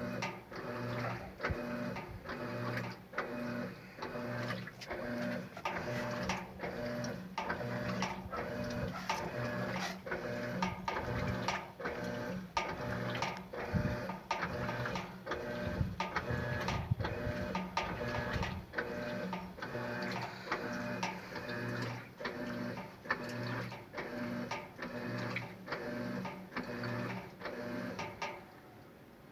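Electrolux LES11 11 kg washing machine agitating a load of bed linen: its motor drives the wash back and forth in even strokes, a little more than one a second, each stroke with a hum. The strokes stop just before the end.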